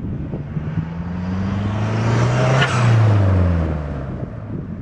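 2007 Mazdaspeed 3's turbocharged 2.3-litre four-cylinder, fitted with a Cobb short ram intake, accelerating past. The engine note rises as the car approaches, is loudest about three seconds in, then drops in pitch and fades as it passes.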